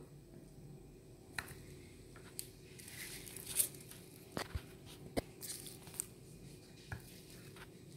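Dry coconut husk fibres being pried and torn away with a metal tool: faint scratchy tearing and rustling, with several sharp snaps or clicks and a couple of brief scraping hisses.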